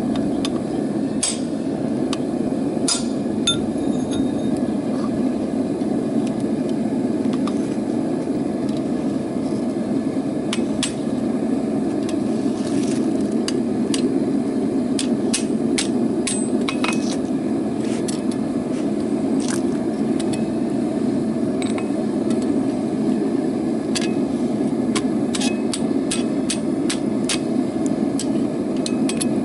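Blacksmith's hammer striking rebar on an anvil in irregular, scattered blows, some in quick clusters, over a steady low rushing noise.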